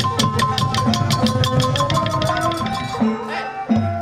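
Khmer chhayam drum music: long decorated hand drums beating under a fast, even ticking of about six strokes a second and a held melodic line. The ticking drops out about three seconds in, leaving the drums and melody.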